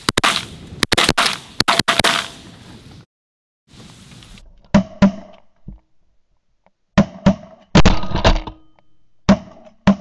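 Shotgun blasts in quick volleys as several hunters fire at a flock of ducks coming into the decoys, about a dozen shots in clusters of two or more, with two brief dead-silent breaks.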